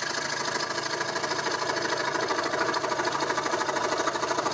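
Hegner fret saw (scroll saw) running with its blade sawing through a thin wooden board: a steady, rapid, even chatter of the reciprocating blade.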